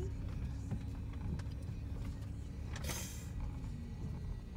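Low, steady motor-vehicle engine rumble with a faint steady hum that sags slightly near the end; a short burst of hiss about three seconds in.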